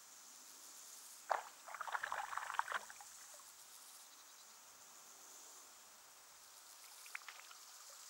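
A frog leaping into pond water among floating plants: one sharp splash about a second in, then about a second of splashing and rustling in the water. Insects chirp steadily and high in the background.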